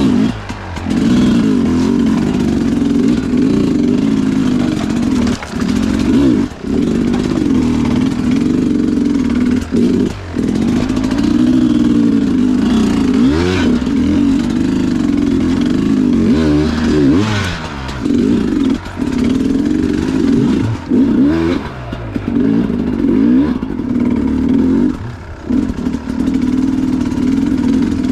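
Sherco two-stroke enduro dirt bike engine, fitted with a Smart Carb, revving up and down under constant throttle changes over rough ground. Its pitch keeps rising and falling, with brief drops off the throttle every few seconds, and there is clatter from the bike over the terrain.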